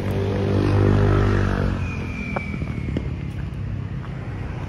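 A motor vehicle's engine passing close by on the street, swelling to its loudest about a second in and then fading away. A brief high whine follows.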